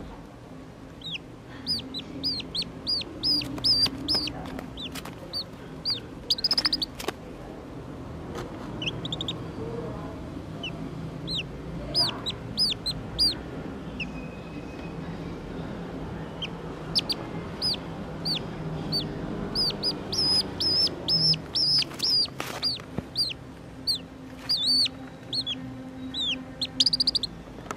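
Black-bellied whistling duck duckling giving distress calls: runs of short, high, falling peeps, a few a second, with a pause in the middle. A low steady hum and a few clicks sit underneath.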